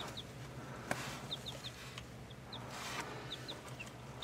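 Baby chicks peeping: about nine short, high, falling cheeps scattered through, faint, over a steady low hum.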